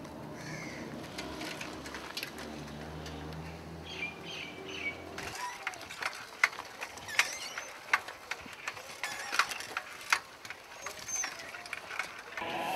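Street ambience: a motor vehicle's engine hums low and steady for about five seconds. The sound then changes abruptly to birds chirping, with scattered sharp clicks.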